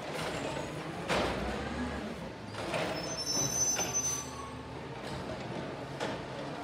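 Automated side-loader garbage truck running while its hydraulic arm grips and lifts a wheeled trash cart, with three clunks of the arm and cart, and a brief high squeal about three seconds in.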